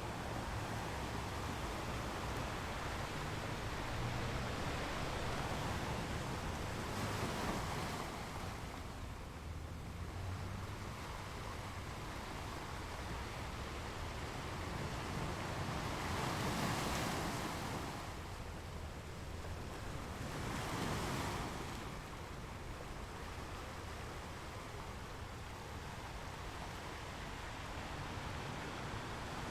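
Ocean waves washing onto the shore in a steady surf, with a few louder breakers swelling and falling back: about 7 seconds in, at the middle, and again a few seconds later.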